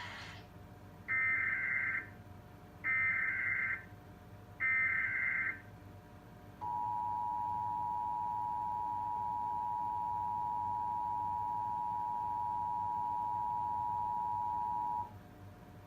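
Emergency Alert System header as broadcast on TV: three short bursts of SAME digital data tones, about a second each, then the steady two-tone EAS attention signal, held for about eight seconds before it cuts off. It marks the start of the national EAS test.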